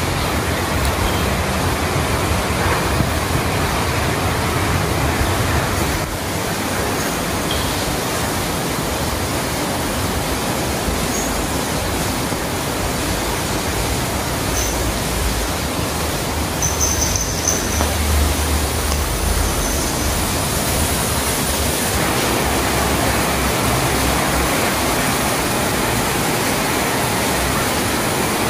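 Heavy rain making a steady, even hiss with no break.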